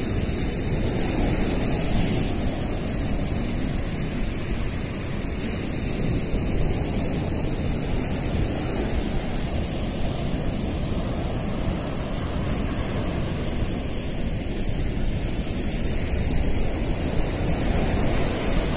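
Ocean surf breaking on a sandy beach: a steady rushing wash of waves.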